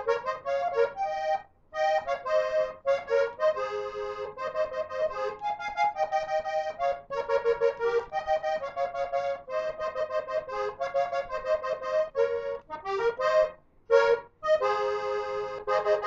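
Hohner Rey del Vallenato diatonic button accordion playing a vallenato tune in quick, rhythmic chords and melody notes, with brief breaks about a second and a half in and near the end.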